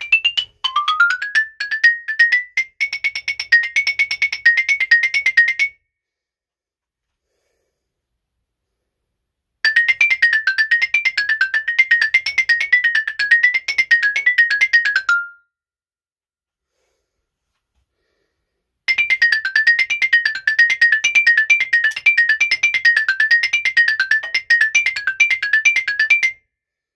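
Marimba played with yarn mallets: fast runs of rapid notes rippling up and down in pitch, in three passages broken by two silent pauses of about four seconds each.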